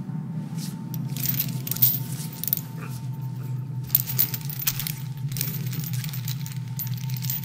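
Metal chains clinking and rattling in irregular bursts over a steady low droning music bed.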